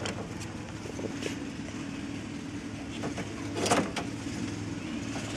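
A few clicks and knocks from a hand working in a plastic tub of bee pollen with a plastic scoop. The loudest knock comes near the end, over a steady low hum.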